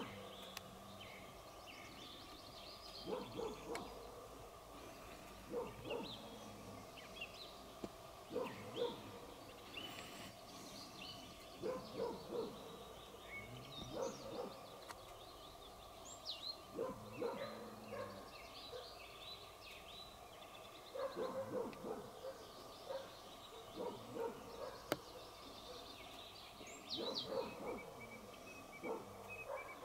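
Barks repeated every two to three seconds, often in twos or threes, with small bird chirps and calls above them.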